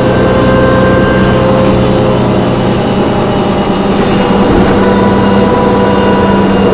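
Loud drivetrain noise heard inside a New Flyer D40LF transit bus: its Cummins ISM diesel and Voith transmission running, with steady whining tones over the engine that fade and come back. This is the screeching that the uploader puts down to the brakes or the transmission.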